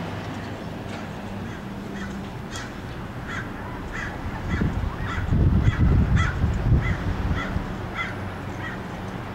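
A bird calling over and over, short calls a bit under two a second, starting about two and a half seconds in. A steady low hum runs beneath, and a low rumble swells up in the middle and is the loudest part.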